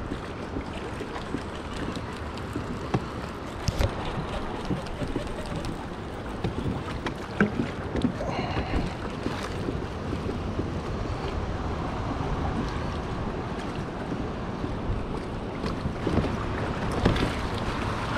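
Steady rush of river water around a kayak, with wind on the microphone and a few scattered clicks and knocks.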